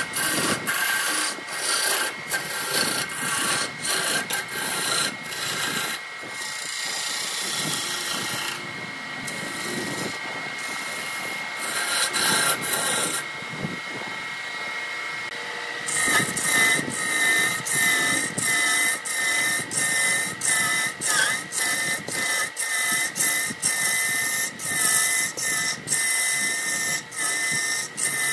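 Wood lathe running with a steady high whine while a hand-held gouge cuts into the spinning wood blank in repeated scraping strokes. The strokes thin out in the middle and come quick and regular again from about sixteen seconds in.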